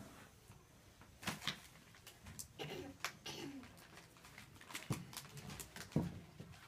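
Sheet of drawing paper rustling and crinkling as it is handled, with a few sharp crackles among quieter rustles.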